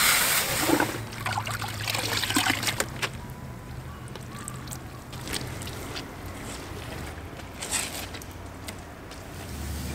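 Water spraying from a garden hose onto a car, stopping about a second in, then a wash mitt scrubbing the wet paintwork with water trickling and scattered soft clicks.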